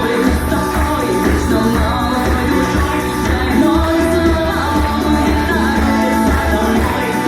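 A song with singing over a band accompaniment and a steady beat in the bass.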